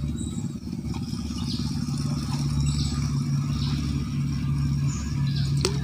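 An engine running steadily with a low, even drone, and a sharp click near the end.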